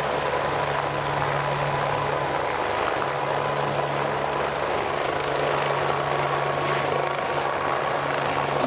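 AgustaWestland A109 twin-turbine helicopter hovering low: steady rotor and engine noise with a faint steady whine.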